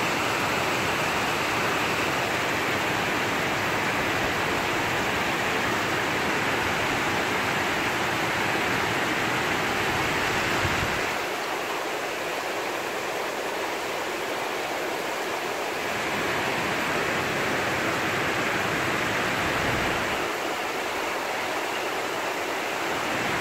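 Heavy downpour: the steady hiss of torrential rain falling, with water spilling off roofs and balconies. The low rumble underneath drops away for a few seconds about halfway through and again near the end.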